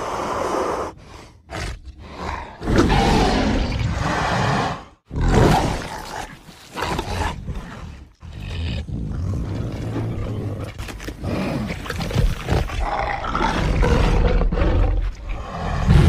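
Carnotaurus dinosaur roar sound effects: a run of roars and growls, a few short ones at first, then longer ones lasting several seconds each, with brief gaps between them.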